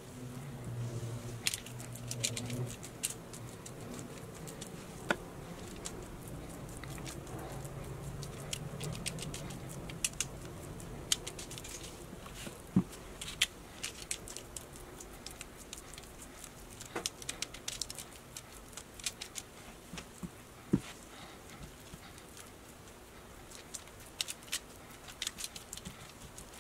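Soft, scattered clicks, taps and light crinkles as a basting brush dabs seasoning paste onto raw fish fillets on a foil-lined baking sheet. The brush also scrapes in the glass bowl, and gloved hands touch the foil.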